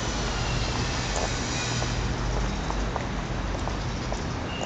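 Steady urban traffic noise with a low engine hum underneath.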